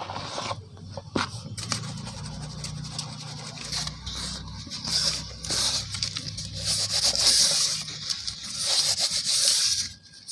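Dry cement powder being rubbed by hand and poured from a plastic bowl into a tub: a soft, gritty hiss that swells several times, loudest in the second half, and stops sharply near the end.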